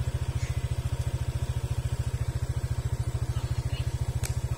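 Engine idling with a steady, rapid low putter, and a single sharp click about four seconds in.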